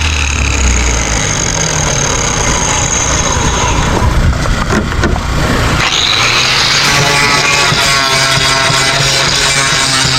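A motor or engine running loudly and steadily, with guitar music coming in about six seconds in.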